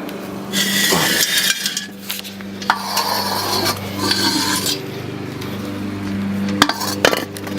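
Metal exhaust parts being handled under a car: scraping and clinking of the pipe and fittings in two stretches, then a few sharp clinks near the end, over a steady low hum.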